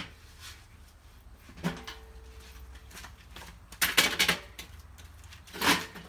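Folding portable workbench being handled and set up: knocks and clatter from its metal frame and slatted top, the first knock followed by a brief metallic ring, a cluster of clatter about four seconds in, and one last loud knock near the end.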